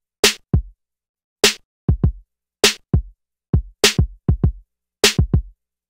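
Intro music: a sparse drum-machine beat of separate kick and snare hits with silence between them, about two to three hits a second, the kicks trailing off into a deep falling tail.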